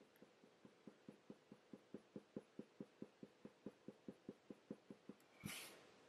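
Faint, quick strokes of a Faber-Castell Polychromos coloured pencil on hot-press watercolour paper, about four to five strokes a second. The strokes stop near the end and are followed by a brief louder rustle.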